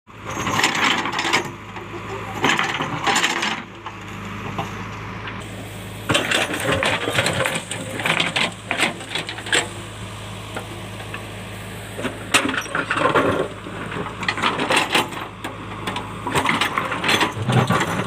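JCB backhoe loader's diesel engine running steadily while its backhoe bucket digs into rocky soil, with several bursts of stones scraping and clattering against the steel bucket.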